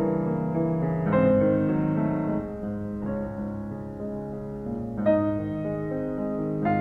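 Background piano music: slow, held chords that change about a second in, again around five seconds in, and once more near the end.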